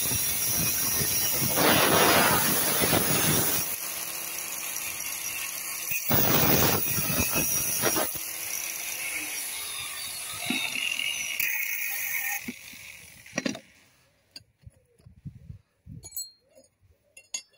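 Angle grinder running and cutting a thin sheet, louder where the disc bites, then dying away about thirteen seconds in, followed by a few light handling clicks.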